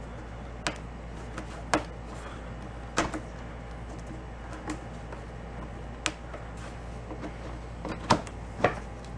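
Scattered sharp clicks and knocks of a lawn mower grass catcher bag's plastic frame being handled and fitted onto the mower, about six in all, over a steady low hum.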